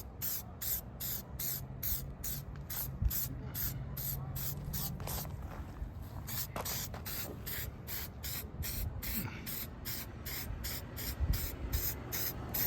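Aerosol headlight clear-coat spray hissing in short, rapid, even bursts, about four a second.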